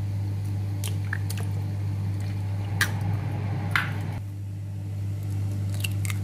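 Raw eggs cracked and emptied into a plastic blender jug: a few sharp shell cracks with soft wet squishes of egg dropping in, over a steady low hum.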